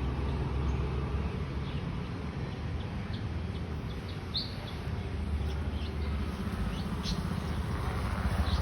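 Birds chirping in short scattered calls over a steady low rumble of city traffic, with a vehicle passing and the noise swelling near the end.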